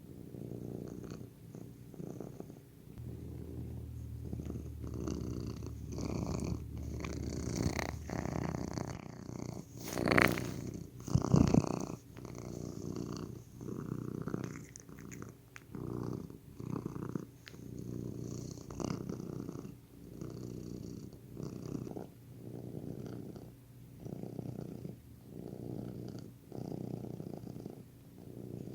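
Domestic cat purring close up, swelling and fading with each breath about every second and a half. About ten seconds in there is a brief louder bump or rustle.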